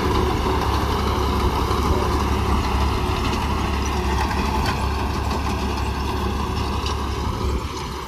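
Engine of harvest machinery running steadily at a constant speed, with a strong low hum; it eases a little near the end.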